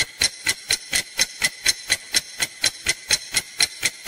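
Countdown timer sound effect: fast, even ticking, about four ticks a second, with a faint high ring under the ticks.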